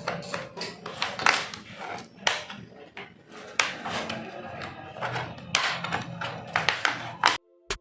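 Irregular clicks, taps and knocks of plastic laptop casing and small tools as an HP 1000 laptop's case is opened and taken off, stopping abruptly near the end.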